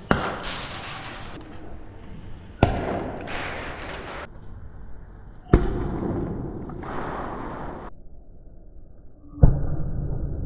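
Four sharp bangs a few seconds apart, each followed by a rushing hiss, typical of an airsoft 40 mm gas grenade launcher firing.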